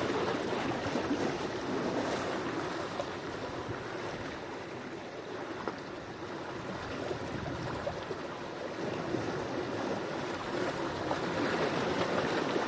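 Sea waves washing onto the shore in a continuous surf, easing off mid-way and building again near the end.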